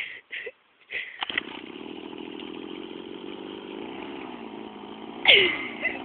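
A vehicle's engine turning over or running with a steady drone for about five seconds, on a vehicle that won't start. Near the end a loud cry slides down in pitch over it.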